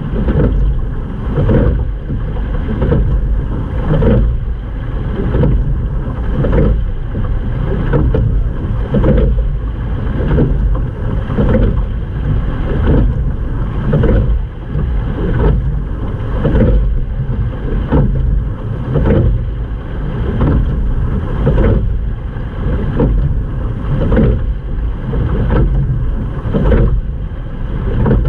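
Water rushing along the bow of a sculling boat under way, swelling in a regular beat about every second and a quarter in time with the rowing strokes, over a steady low rumble.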